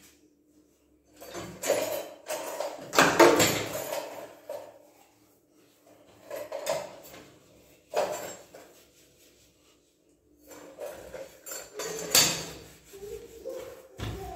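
Kitchen utensils and containers handled on a counter: irregular clatter and knocks, heaviest about two to four seconds in, a couple of single knocks in the middle, and another run of clatter near the end.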